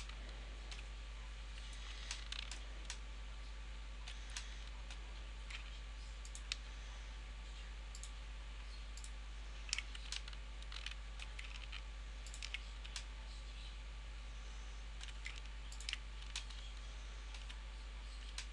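Computer mouse clicking every second or so at an irregular pace, sometimes twice in quick succession, as polygons are picked one at a time. A steady low hum runs underneath.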